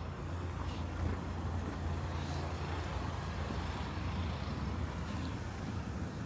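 Road traffic on a snowy city street: a steady low rumble, with a vehicle passing and swelling up about two to three seconds in.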